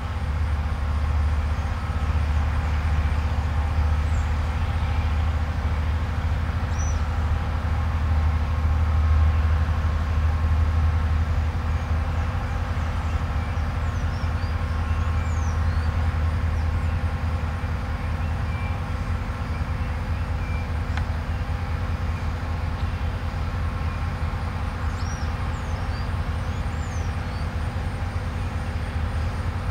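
A steady low rumble with a few steady hums above it runs throughout and is the loudest sound. Over it, a bird gives faint, short, high chirps and whistles now and then, in a few small clusters.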